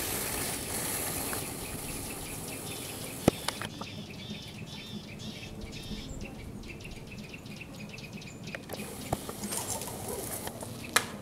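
Small birds chirping in a snowy pine forest: short high calls repeated in quick runs, with a sharp knock about three seconds in and another near the end.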